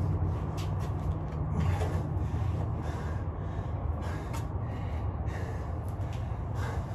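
A person breathing hard in short noisy gusts after a set of exercise under a 25 lb weight vest, over a steady low hum.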